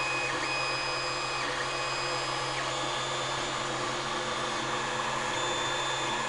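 Creality Ender 3 3D printer running a print: a steady whir of its cooling fans, with stepper motors whining in short high tones that start, stop and shift in pitch as the print head moves.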